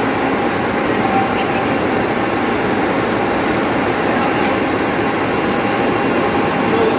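Electric motor-driven water pump running with a steady, even mechanical noise, with water spraying from a fitting on the pump.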